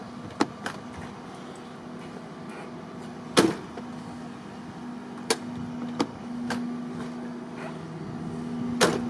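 Sharp plastic clicks and knocks from the car's interior door handle and its trim piece being fitted back and worked, about six in all, the loudest about three and a half seconds in. A steady low hum runs underneath.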